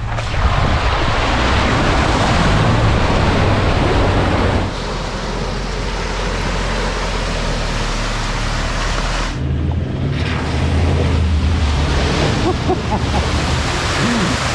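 Four-wheel drive on the move: a low engine drone under a loud, steady rushing noise of wind and tyres or water. The sound changes abruptly twice, about a third and two thirds of the way through.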